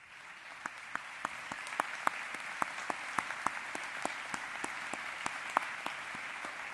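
Audience applause that builds up over the first second and then holds steady, with sharp single claps from people close by standing out above it.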